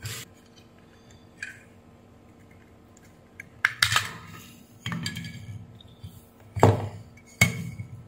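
Plastic AC adapter case being handled: a click at the start, then a run of sharp plastic knocks and clatters from about three and a half seconds in as the circuit board is pulled out and the case halves are set down on a hard bench.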